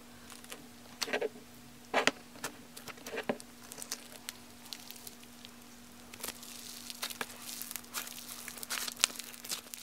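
Thick slime being poked, squeezed and pulled out of its plastic tub by hand, making sticky pops. A few sharp pops come in the first few seconds, then denser crackling over the last few seconds, over a faint steady hum.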